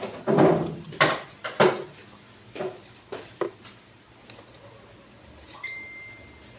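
Billiard balls knocking together after a shot: a quick run of sharp clicks, the loudest at the start and about a second in, thinning to a few fainter knocks. A faint steady high tone sounds near the end.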